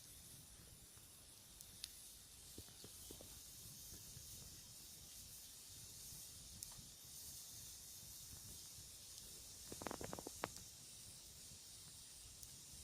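Small campfire of sticks burning faintly, a steady hiss with occasional crackles and a quick run of pops about ten seconds in.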